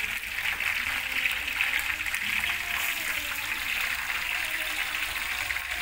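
Chicken wings frying in hot oil in a wok, a steady sizzle.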